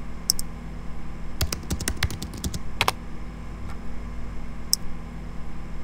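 Typing and clicking on a computer keyboard: a couple of keystrokes at the start, a quick irregular run of them in the middle, and one more near the end, over a low steady hum.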